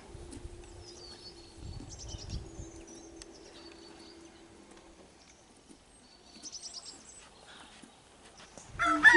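Faint chirping of small wild birds in two short spells, over a faint steady hum that stops about halfway through. A rooster starts crowing right at the end.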